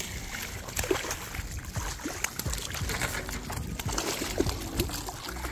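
Water splashing and trickling, with small irregular splashes and knocks over a steady low rumble of moving water.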